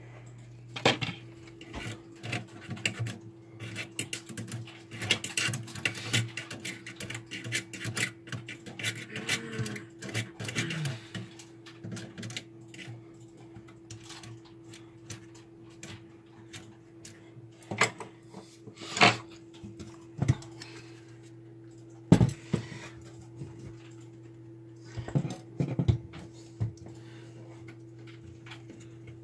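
Hands working inside an opened Radiotekhnika U-101 stereo amplifier's metal chassis: irregular clicks, taps and clatter of tools and metal parts, with a few sharper knocks in the second half, over a steady low hum.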